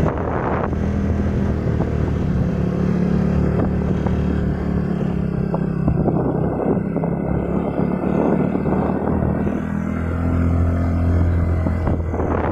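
Motorcycle engine running steadily while riding on a winding road, its note growing louder about ten seconds in.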